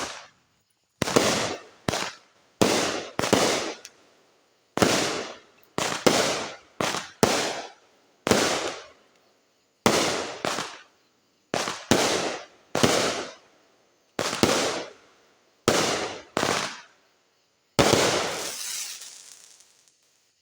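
Fireworks going off: about twenty sharp bangs at uneven intervals, each trailing off quickly. The last, near the end, is the longest and fades out over about two seconds.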